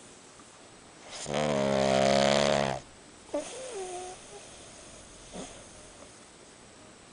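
Sleeping pug snoring: one loud snore lasting about a second and a half, starting about a second in, then a faint wavering whistle.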